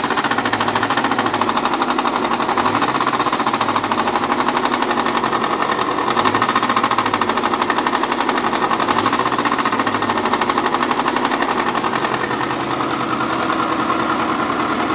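Subaru EJ152 flat-four engine running with a rapid, even knock.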